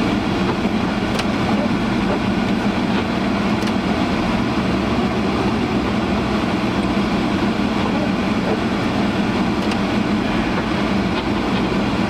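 Honda CR-V's defroster fan blowing at full blast inside the cabin, a loud, steady rush, with the car's driving noise beneath it.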